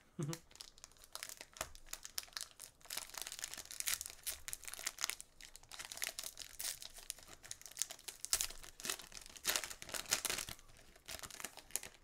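Plastic foil wrapper of a basketball card pack crinkling and tearing as it is handled and opened, in irregular crackling spells that are loudest twice.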